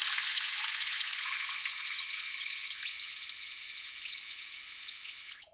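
Running water: a steady, even hiss of flowing water that cuts off abruptly near the end.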